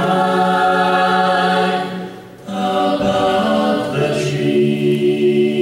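Mixed a cappella choir singing long held chords with no instruments. The chord breaks off briefly about two seconds in, the voices come back in, and they move to a new chord a little later.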